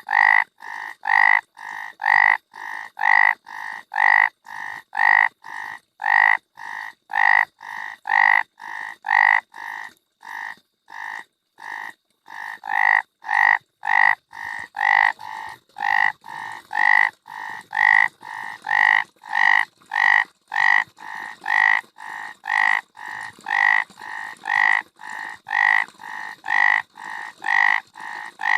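Frogs croaking in a steady rhythm of short calls, about two a second, with louder and softer calls alternating. The calling thins out briefly a little over a third of the way in, then resumes.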